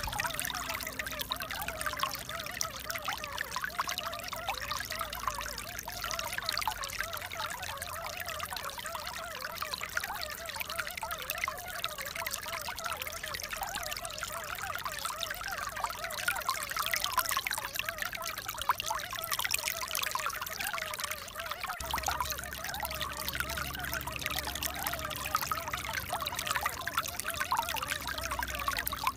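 Steady sound of water pouring and trickling, with a low rumble joining about three-quarters of the way in.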